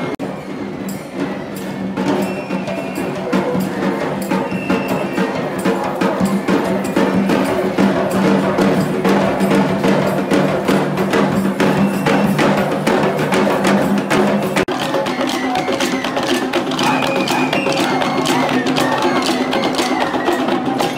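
Sri Lankan perahera procession music: traditional drums beating fast, dense strikes, under long held notes from a wind instrument. The music changes abruptly about two-thirds of the way through.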